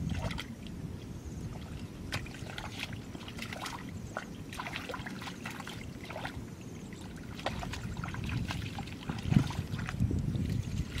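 Hands splashing, sloshing and dribbling in shallow muddy water while groping for fish by hand, a string of small irregular splashes with a louder one near the end, over a low steady rumble.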